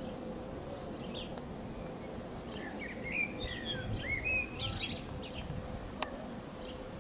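A small bird chirping and warbling in quick rising and falling notes for about two seconds in the middle, over the steady low drone of a distant Airbus A380's jet engines, with a single sharp click near the end.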